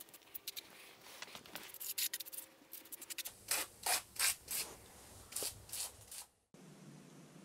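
An aerosol can of foaming engine degreaser sprayed in short hissing spurts onto a motorcycle engine. About six and a half seconds in the spraying stops abruptly, leaving a faint steady hum.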